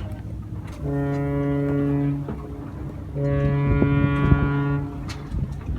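Boat's electric horn sounding two long, steady blasts of about a second and a half each, with a few knocks during the second.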